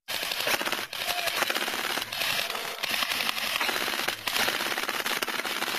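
Sustained gunfire: a dense, continuous crackle of many rapid shots, with a few louder sharp reports standing out.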